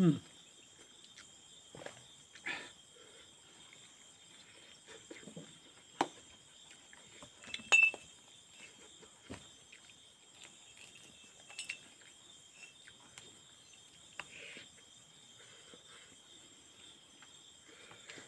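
Close eating sounds: a man chewing and smacking his lips as he eats rice by hand from a steel plate, with scattered clicks and a sharp clink about eight seconds in. A faint, steady high insect drone runs underneath.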